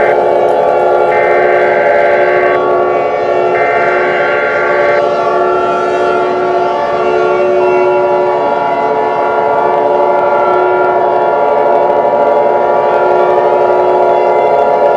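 Emergency Alert System tones over a steady droning chord: two short screechy data bursts about a second apart, the end of a three-burst alert header. About halfway through, the long held attention tone comes in.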